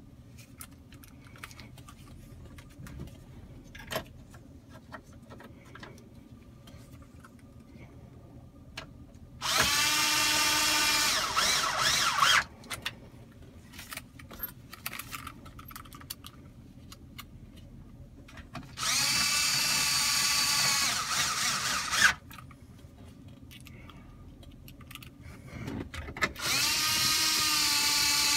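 Cordless 1/4-inch electric screwdriver driving 7 mm screws, its motor whining in three runs of about three seconds each, with light clicks of handling between the runs.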